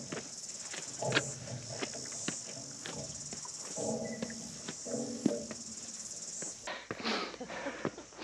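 Insects buzzing steadily in the bush, a high continuous drone that cuts off suddenly near the end, over the crunch and scuff of hiking boots on rough rock as a climber goes up beside the handrail.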